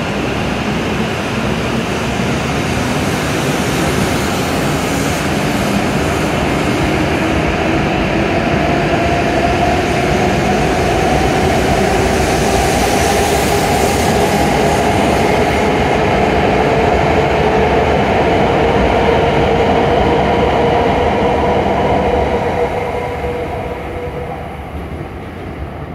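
W7 series Shinkansen train pulling out and accelerating past, its traction motors whining in two tones that climb steadily in pitch over the rumble of the wheels. The sound fades away about 22 seconds in as the last car clears the platform.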